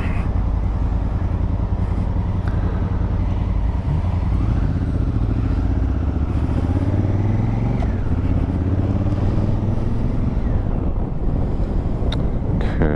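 2019 Honda Africa Twin's parallel-twin engine running while riding, heard with wind and helmet noise on a mic inside the helmet. The engine pitch rises and falls a few times.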